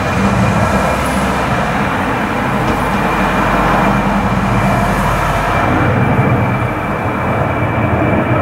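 Airbus A300-600ST Beluga's two General Electric CF6-80C2 turbofans at takeoff thrust as it climbs out. It is a loud, steady jet roar with a deep rumble and a thin, steady high whine held through it.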